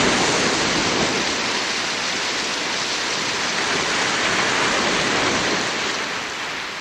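Sea waves washing in, a steady rush of surf that swells and eases slowly, then fades out near the end.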